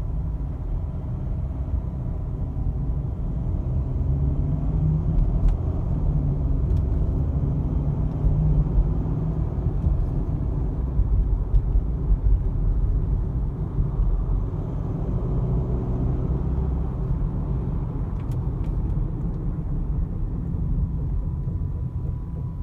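Mercedes-Benz GLK on the move, a steady low rumble of road and running noise with a few light clicks, recorded to capture an unexplained extraneous noise that appears when braking.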